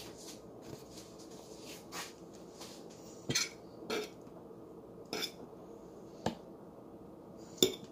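A metal spoon clinking and tapping against dishes while turon filling is spooned out: about six short, light knocks, roughly a second apart.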